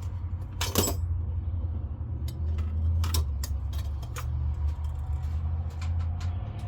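Metal clinks and clatter of hand tools and parts being handled during a teardown, the loudest clank just under a second in, over a steady low hum.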